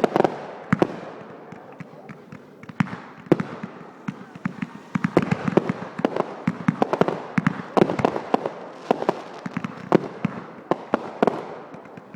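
Fireworks going off in a rapid, irregular string of sharp bangs and crackling pops, thickest in the middle of the stretch.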